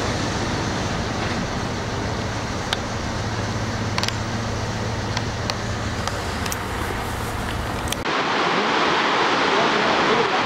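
Steady outdoor background noise with a low hum and a few sharp clicks, then, after an abrupt cut about eight seconds in, the heavy rushing of water thrown from the Itaipu Dam spillway.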